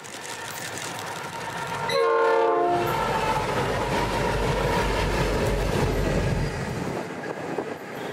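Diesel locomotives running light past, a G class among them. The horn sounds once about two seconds in, a short chord that drops slightly in pitch as it passes. Then the engines' low rumble is loud for several seconds and fades near the end.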